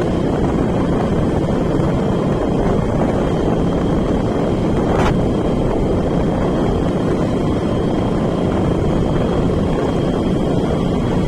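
Steady noise of a vehicle on the move, with wind buffeting the microphone and a faint steady high whine.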